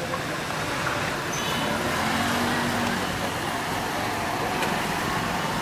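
Steady background road-traffic noise, with a faint short high tone like a distant horn about a second in.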